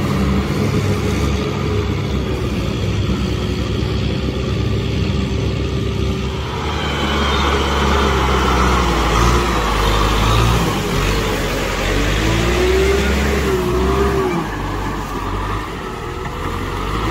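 Kubota M6040SU tractor's diesel engine running steadily while the tractor works a muddy field. The sound grows louder and brighter about seven seconds in, and the engine note rises and falls a few times in the middle.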